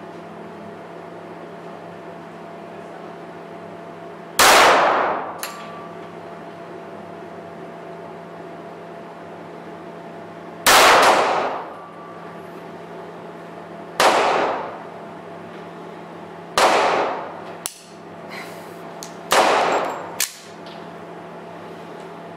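Korth PRS roller-delayed .45 ACP pistol fired five times at uneven intervals, the first gap the longest, each shot echoing for about a second in a vaulted brick range. Small clinks follow some of the shots.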